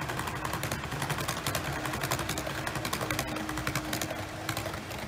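Brass HO-gauge model of an E257-500 series express train running past, its metal wheels clicking rapidly over the rail joints over a steady motor hum.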